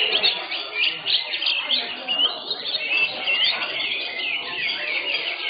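Caged greater green leafbirds (cucak hijau) singing in competition: many rapid, overlapping chirps and short whistled notes.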